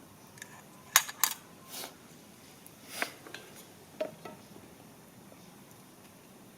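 Clinks and knocks of tableware being handled: a sharp double clink about a second in, then single knocks about three and four seconds in.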